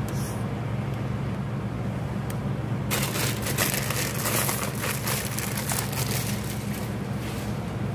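A steady low hum, with dense dry crinkling and crackling from about three seconds in until near the end, as of something dry being crumpled or broken by hand.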